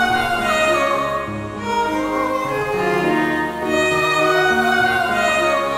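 Background music: a violin melody with vibrato, moving slowly over held lower string notes.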